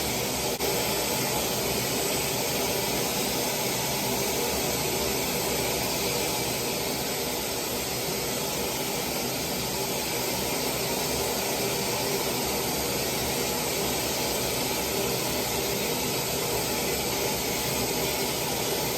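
Techmeri high-speed ion hair dryer running, blowing air at a steady, unchanging level.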